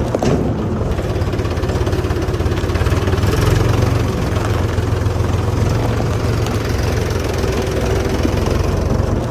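An engine running steadily with a low rumble, like a backhoe loader's diesel at work.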